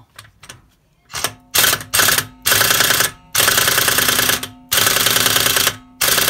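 Pneumatic impact wrench hammering on a 21 mm wheel lug nut: a few short bursts, then four longer bursts of about a second each. The nut won't break loose, which the owner puts down to the wheel being jacked off the ground.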